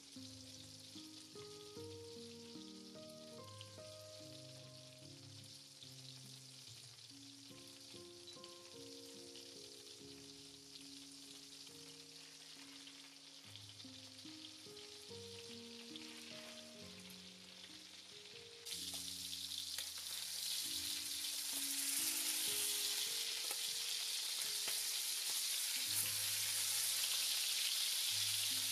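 Butter sizzling and foaming in a cast-iron skillet. About two-thirds of the way through, the sizzle abruptly becomes much louder and fuller as steaks sear in the hot butter.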